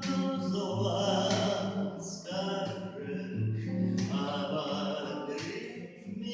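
Music: a song with singing voices, sustained sung notes changing every half second or so over a steady low bass.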